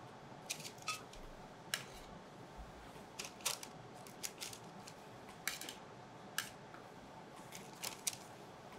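Metal kitchen tongs clicking and tapping now and then, a dozen or so light, irregular clicks, as fried potato slices are laid one by one into a glass terrine dish.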